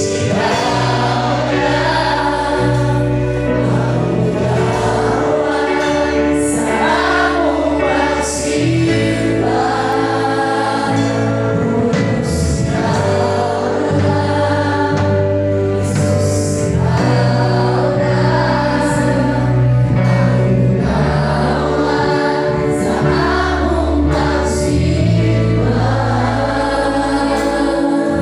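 A congregation singing a worship song together over instrumental accompaniment of held chords and a bass line.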